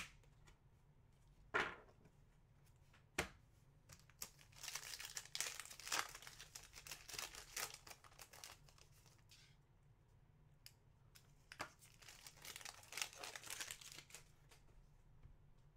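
Foil trading-card pack being torn open and crinkled by hand, in two spells of crackling. Two sharp taps come in the first few seconds.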